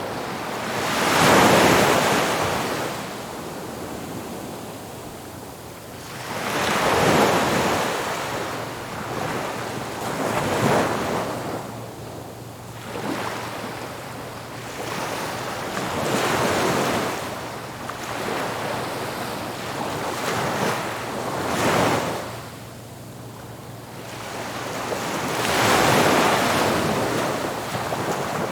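Ocean waves breaking on a shore, each surge building to a rushing crash and drawing back, about every five seconds, with several smaller washes between the big breakers.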